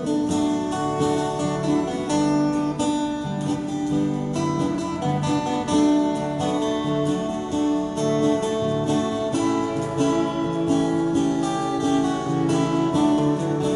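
Live acoustic guitars playing an instrumental break between sung verses, with steady rhythmic strumming under a melody.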